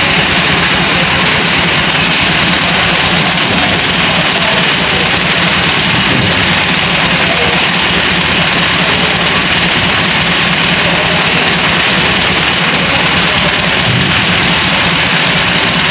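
Massey Ferguson tractor's diesel engine running steadily at idle.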